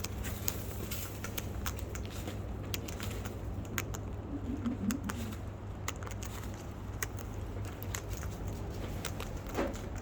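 Birds feeding: many irregular sharp clicks and taps of beaks and claws on a hard surface, with a short low call about four seconds in.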